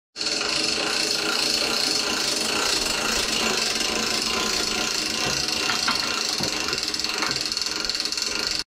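A hand-held power tool running steadily with a high whine as it trims a cow's overgrown hooves.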